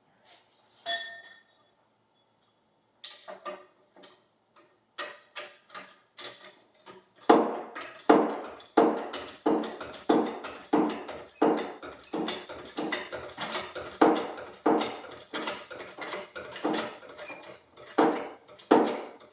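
Car jack being worked to lift the car: a few scattered clicks and knocks, then from about seven seconds in a regular run of strokes, about three every two seconds.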